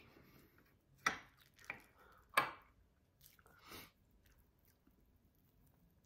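A few short slurps of hot soybean sprout soup broth sipped from a wooden spoon, coming about half a second to a second apart, the third the loudest.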